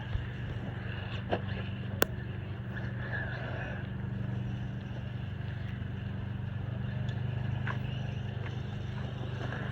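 Traxxas Maxx electric RC monster truck running on a 3S battery, a steady motor and drivetrain hum with tyre noise, with a few sharp knocks in the first two seconds.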